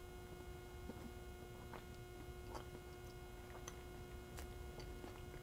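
Faint steady electrical hum, with a few faint soft clicks about a second apart from a person chewing a mouthful of food.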